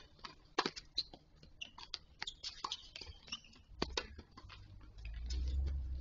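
Tennis rally on a hard court heard from a distance: irregular sharp pops of the ball off racket strings and bouncing on the court, the loudest about half a second in. A low rumble sets in about five seconds in.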